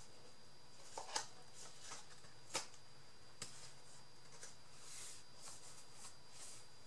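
Paper and card being handled: soft rustling with a few sharp clicks and taps.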